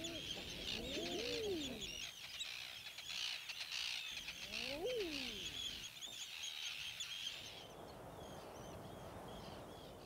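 Common eider drakes cooing, each call a low, rising-and-falling 'ah-ooo'. There are a few overlapping calls near the start and one clear call about five seconds in. Behind them runs a steady high twittering of many small birds, which thins out near the end.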